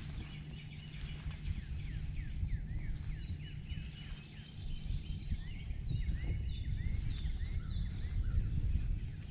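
Birds chirping: many short, downward-sweeping calls one after another, over a low steady rumble.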